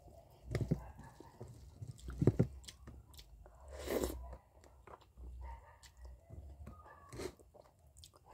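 A person eating fish curry and rice by hand close to the microphone: irregular wet chewing and mouth clicks, with a few louder mouth sounds spaced a second or two apart.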